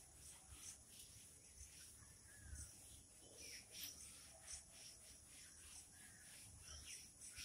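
Near silence: faint, irregular swishes of a cloth wiping chalk off a blackboard, with a few faint bird chirps in the background.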